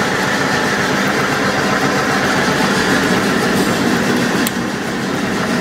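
Dynamic crankshaft balancing machine spinning a crankshaft assembly with its flywheel fitted, at about 400 RPM, running steadily. The assembly is far out of balance: enough to push the balancer's amount meter off the scale and to be felt through the machine.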